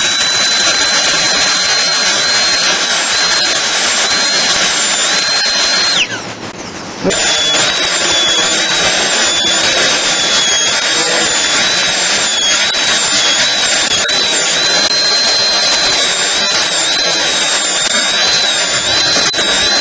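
High-speed dental handpiece with a diamond bur running at a steady high whine while cutting the proximal side of an upper central incisor, its pitch dipping repeatedly as the bur bears on the tooth. About six seconds in it stops and winds down with a falling whine, then starts up again a second later and goes on cutting.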